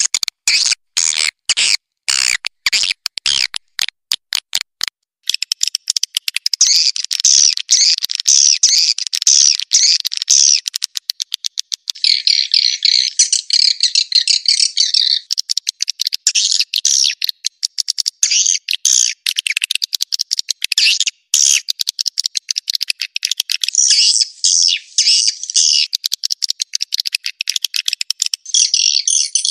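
Edible-nest swiftlets' calls as used in a lure recording to call swiftlets in to roost. A quick series of dry clicks comes first, and after about five seconds it turns to dense, continuous high twittering chirps.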